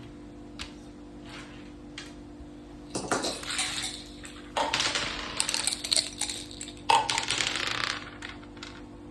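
Small hard game pieces and dice clattering on a mak saka board in three rattling bursts, each about a second long, after a few light clicks.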